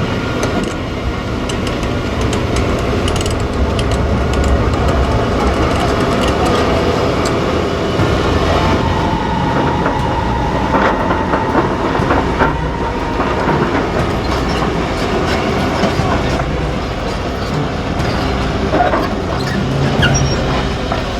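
Heavy demolition machinery at work: a diesel engine rumbling under continuous metallic clanking, knocking and squealing, with a held squeal about halfway through.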